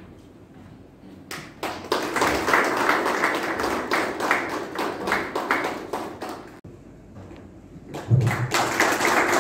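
Audience clapping in two spells: the applause starts about two seconds in and dies away after about six seconds, then starts again near the end, opening with a low thump.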